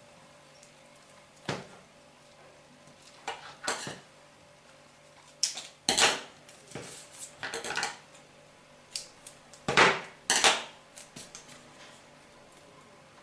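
Hands working paper craft pieces and a roll of double-sided tape on a cutting mat: a scattering of short knocks, taps and rustles as the tape roll is picked up and put down and the paper is peeled and pressed.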